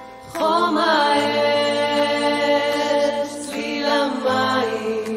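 Singing in a Hebrew song: one voice holds a long note that wavers at its start, then takes up a second long note about four seconds in, with music behind it.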